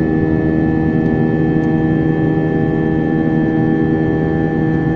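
Airliner's jet engine droning steadily in the climb after take-off, heard inside the cabin near the wing: a constant low rumble with several held humming tones over it.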